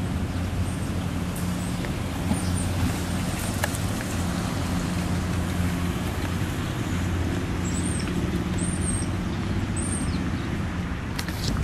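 Steady low mechanical hum, with a few brief high bird chirps in the second half.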